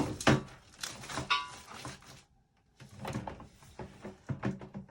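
Handling noise from hard objects: a sharp knock just after the start, then scattered clicks, rattles and a brief squeak. After a short pause near the middle, another run of light clicks and knocks follows.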